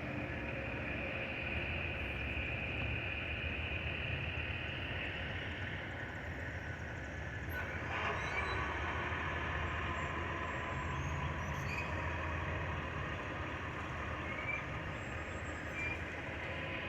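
Amtrak passenger train rolling past: a steady rumble of wheels on the rails with a faint high squeal.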